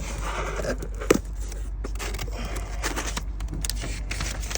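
Paper and packaging rustling and crinkling as items are handled in an opened shipping box, with a sharper click about a second in, over a steady low hum.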